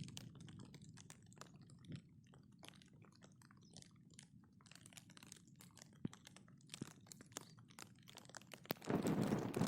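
Raindrops ticking irregularly on a surface close to the microphone, faint and uneven. A louder rustle comes in near the end.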